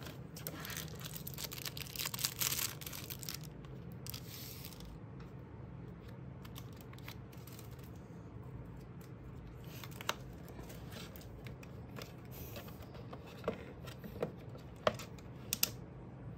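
Clear plastic wrapping rustling and crinkling as the remote control is taken out of its bag, over about the first three seconds. Later come a few sharp, separate clicks, with a steady low hum underneath.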